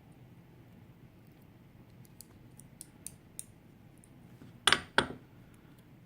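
Small metallic ticks and clicks of a pin-tumbler lock being taken apart by hand, then two much louder sharp clicks a third of a second apart near the end.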